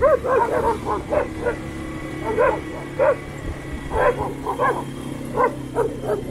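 Two dogs barking repeatedly, close by, in short barks several times a second at first and then in spaced bursts, over the steady low hum of an ATV engine.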